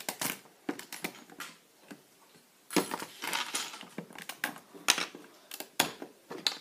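Plastic Lego bricks clicking and snapping as they are pulled apart by hand and set down on a wooden table: an irregular scatter of sharp clicks, busiest about three seconds in.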